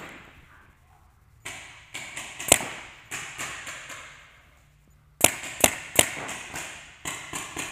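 Paintball markers firing in quick strings of shots: a volley about a second and a half in, a short lull, then three loud, close shots around five to six seconds in, followed by more rapid popping.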